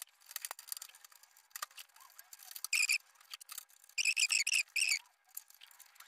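Wire connector plugs being pulled one by one off a gas fan heater's control circuit board: scattered small clicks and scrapes. There are two short runs of high, chirping squeaks, one about three seconds in and a longer one about four seconds in.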